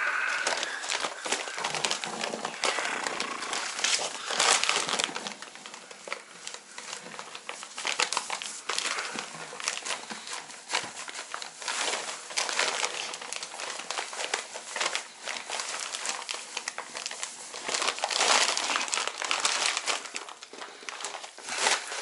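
Paper sack of self-leveling floor underlayment crinkling and crackling as it is tipped and shaken, pouring its fine powder into a plastic bucket, with irregular louder flurries of rustling.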